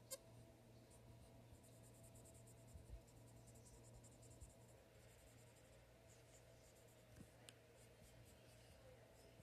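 Dry-erase marker drawing on a whiteboard: faint squeaky, scratchy strokes in quick runs, with a pause in the middle.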